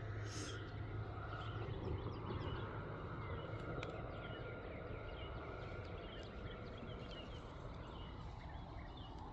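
Outdoor dawn ambience: many small chirps of birds or insects over a steady low rumble, with a few faint clicks.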